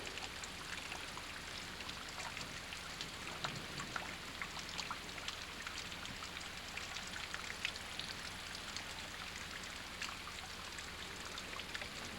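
Rain falling and dripping: many small scattered drop hits over a steady hiss.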